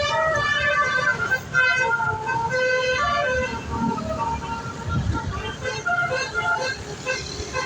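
Bus's basuri musical air horn (telolet horn) playing a tune: a string of held notes stepping between different pitches, several notes a second, over a low rumble.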